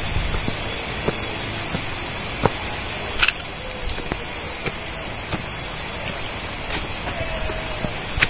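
Footsteps climbing steps, about one step every two-thirds of a second, with a sharper scuff about three seconds in, over a steady high-pitched hiss.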